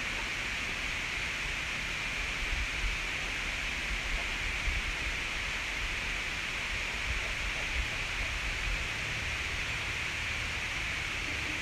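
Steady background hiss, with faint low rumbling in the middle seconds and no distinct event.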